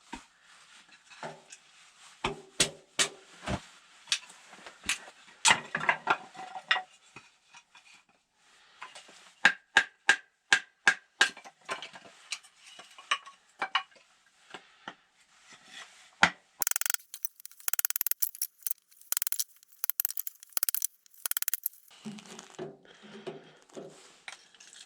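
Objects being handled: a run of sharp clicks, knocks and clinks, then about five seconds of dense crackling rustle, then a few softer knocks near the end.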